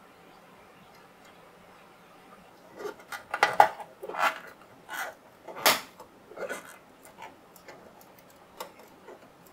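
Irregular small clicks and taps of a plastic window trim being handled and pressed onto a scale-model car body, starting about three seconds in, with the sharpest knocks a little after three and near six seconds.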